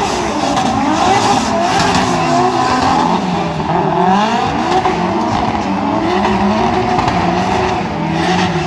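Engines of several drift cars in a tandem run, revving up and down over and over as the cars slide, with their pitches overlapping, along with tyre noise from the skidding.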